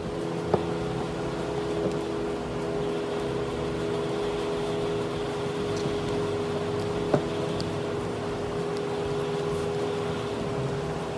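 Steady mechanical hum with two sharp clicks, about half a second in and about seven seconds in, as a screwdriver works the screws of a plastic Johnson/Evinrude outboard carburetor.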